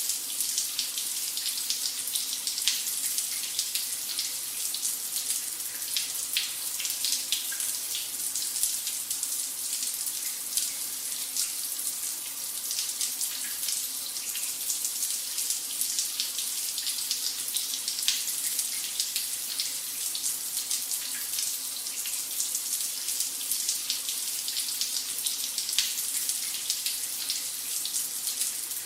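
A running shower: a steady hiss of water spray, with constant small splashes and spatters.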